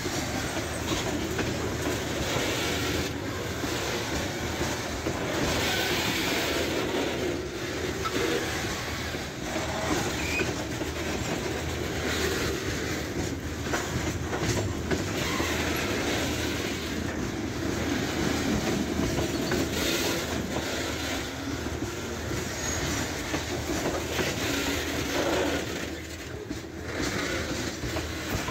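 Freight train of HFD hopper wagons rolling past at close range: steel wheels on rail make a steady rolling noise, with frequent clicks and knocks as the trucks pass over the rail joints.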